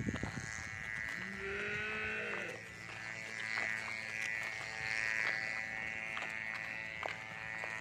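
A cow moos once, about a second in, for about a second and a half, over a steady high-pitched buzzing drone.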